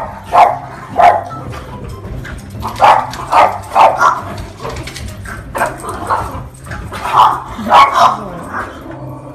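Puppies barking in play: about a dozen short, sharp barks at irregular intervals, some in quick pairs.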